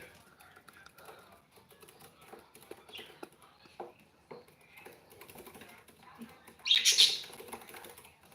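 Pet cockatiel: faint scattered clicks and scratches, then a short, loud, hissy burst about seven seconds in.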